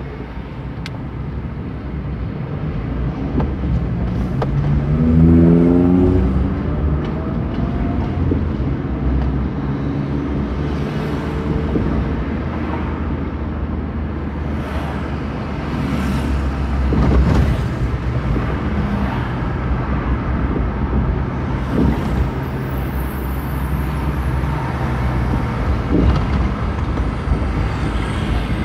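Car engine and road noise heard from inside the car: a steady low rumble, with the engine note rising as the car accelerates from a standstill about three seconds in, then rising again more slowly in the next gear. A few short knocks come later, over the steady drive.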